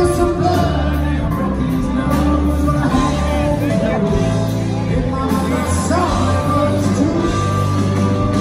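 Live southern rock band playing at full volume: electric guitars, bass and drums, with a man singing.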